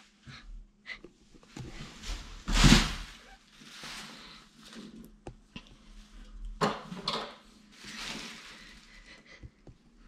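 Soft rustling and handling noises with a few light knocks, from someone shifting about inside a closet against its door. The loudest rustle comes about two and a half seconds in, and another just under seven seconds in.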